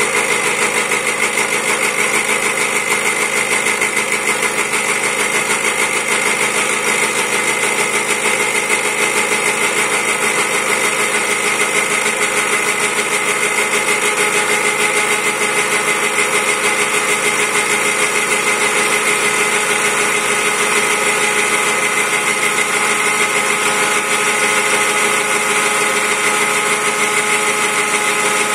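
Homemade 4-axis CNC machine cutting a spinning wooden blank into a sphere with a 6 mm two-flute end mill. The spindle runs with a steady whine at several fixed pitches over the continuous noise of the bit cutting wood, unbroken throughout.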